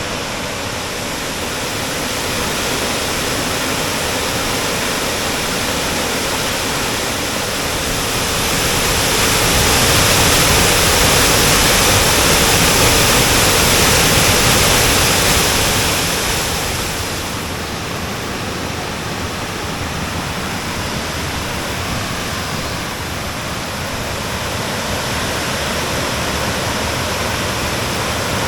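Waterfall rushing steadily, growing louder from about nine seconds in and easing back down around seventeen seconds.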